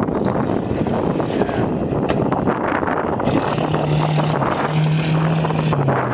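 Rally car approaching on a gravel stage and passing at speed. Its engine note comes through strongly from about halfway through, over a haze of tyre and gravel noise and wind on the microphone.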